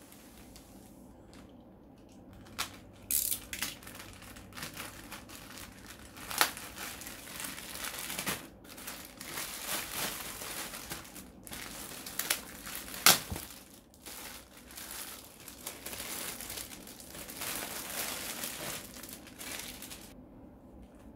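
Plastic courier mailer bag and the curtains' clear plastic wrapping crinkling and rustling as they are handled and opened, with a couple of sharper, louder crackles; it stops about a second before the end.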